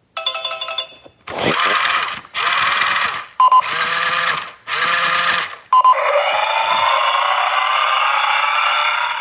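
Thinkway Toy Story RC buggy's built-in speaker playing its test-mode sound effects. First four separate electronic bursts about a second each, with short beeps between them. Then, about six seconds in, a long steady electronic sound that slowly rises in pitch.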